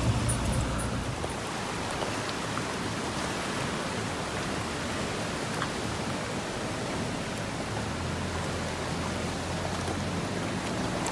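Steady rush of flowing river water, with a faint low engine hum underneath.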